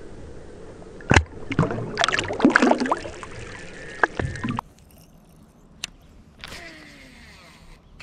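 Water splashing and sloshing at the surface as a hand-held smallmouth bass is let go into the river and kicks away. The splashes come in sharp bursts from about a second in until about halfway. After that there is a quieter stretch with a few isolated sharp clicks.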